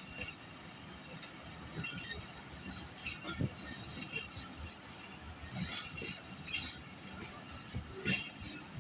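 Passenger train coaches rolling past, their wheels and bogies making irregular sharp metallic clicks and clanks on the rails, about one every second.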